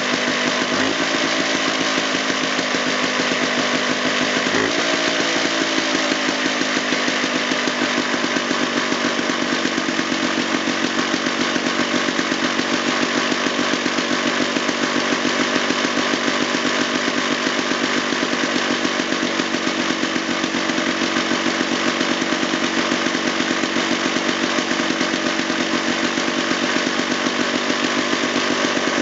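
Rockwell JLO L380 two-stroke engine running. Its speed steps up twice in the first five seconds, then it holds a steady, even idle.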